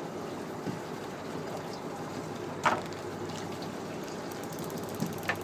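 Steady wash of water and wind noise on a boat at sea, broken by a sharp knock about two and a half seconds in and two smaller knocks near the end.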